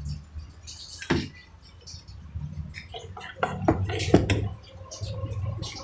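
Clicks and knocks of door lock hardware being handled: one sharp click about a second in, then a cluster of knocks and clicks a little after halfway, over a low steady hum.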